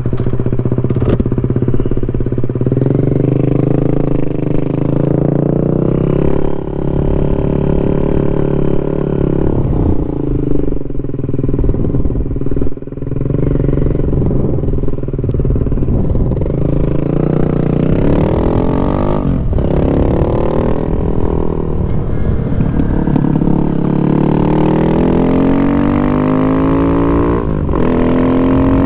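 Kawasaki Z125 Pro's single-cylinder four-stroke engine, fitted with an aftermarket exhaust and heard from on board. It runs at low revs for the first half, then rises in pitch several times as the bike accelerates up through the gears.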